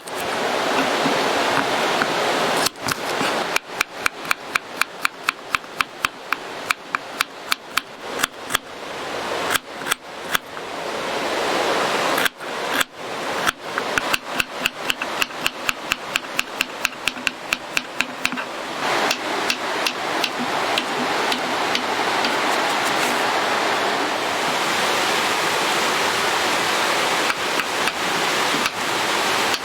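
Rapid chopping on a cutting board, about four strikes a second, in two runs of several seconds, over a steady rushing hiss.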